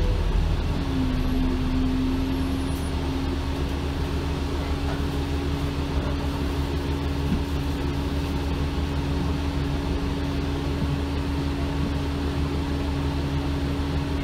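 Alexander Dennis Enviro 400 double-decker bus engine idling steadily with the bus at a stop, heard from inside the lower deck. A steady whine sets in about a second in and holds.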